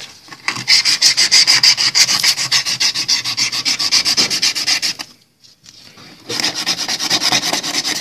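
A strip of abrasive cloth is rubbed rapidly back and forth around an iron refrigeration tube, scouring its surface clean so the brazed joint will not leak. The quick scraping strokes pause for about a second around five seconds in, then start again.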